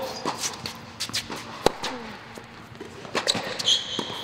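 Tennis rally on an indoor hard court: sharp strikes of racket on ball and ball bounces, the loudest about a second and a half in, and near the end the brief high squeak of a tennis shoe on the court surface.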